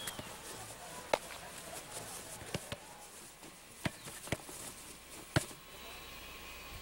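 A football being kicked around on grass: about seven sharp, short knocks at irregular intervals over a faint steady hiss.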